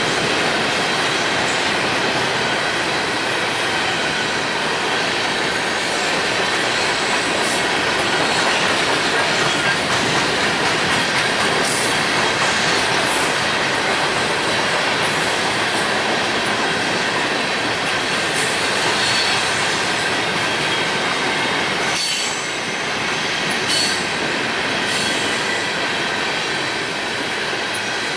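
A long string of empty five-bay coal hopper cars rolling past close by: a steady loud rush of steel wheels on rail with high flange squeal and scattered clanks from the cars.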